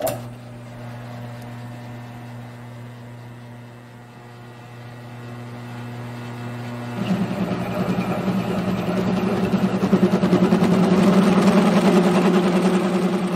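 Grizzly G1007 mill/drill running with a steady motor hum. About seven seconds in the sound turns louder and fuller, with a rapid pulsing, as the end mill cuts a fishmouth saddle notch into the end of a steel tube.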